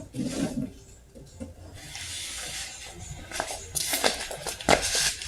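Light handling clicks and knocks with a little rubbing, a few sharper ones in the second half.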